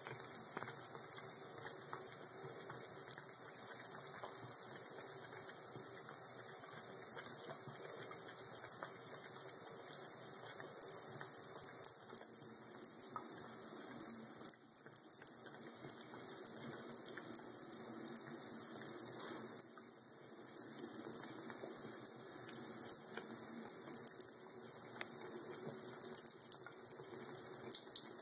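Bathroom sink faucet running a thin, steady stream onto a cat's wet fur and trickling into the basin, with scattered small splashes and drips.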